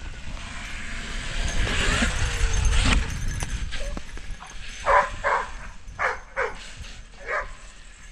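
Dog barking five times, two quick pairs and then a single bark, from about five seconds in. Before that, a loud rush of noise with a deep rumble for a couple of seconds.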